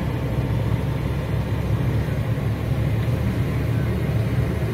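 Steady low rumble of vehicle and road noise, with no distinct events.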